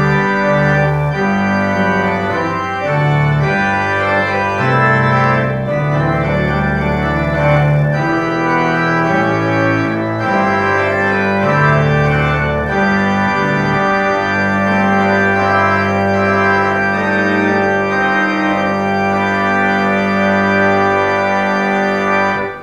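Organ music: a march played on the church organ in sustained chords, closing on a long final chord held for several seconds and then released.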